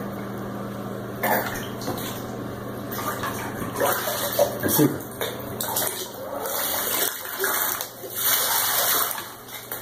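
Bath water splashing as a plastic container is dipped into a bathtub, then water poured from it over a baby's head to rinse the hair, loudest as the pour runs off near the end.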